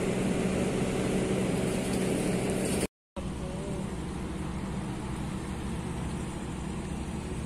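Steady engine drone of ships running in the harbour, a low hum over a noisy background. It drops out for a moment about three seconds in and comes back somewhat quieter.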